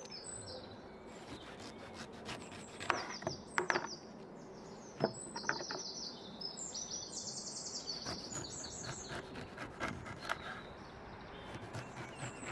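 Chef's knife cutting the peel off a whole pineapple on a wooden cutting board: scattered cuts and knocks of the blade against the board. Small birds chirp in quick repeated trills throughout.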